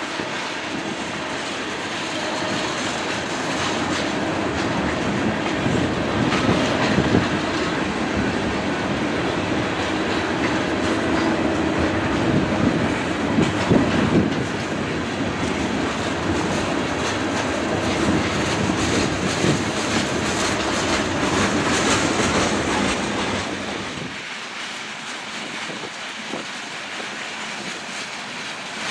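Freight train tank cars rolling past, a steady rumble and clickety-clack of steel wheels over the rail joints. About 24 seconds in it drops to a quieter, more distant rolling of freight cars.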